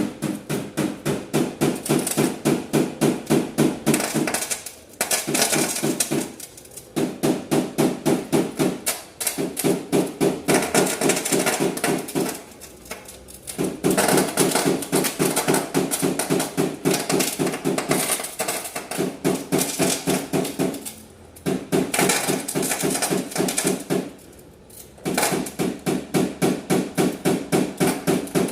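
Rapid light hammer taps on a car body panel during paintless dent repair, about five a second, in runs of a few seconds broken by short pauses. This is the knock-down tapping used to level the metal around a dent.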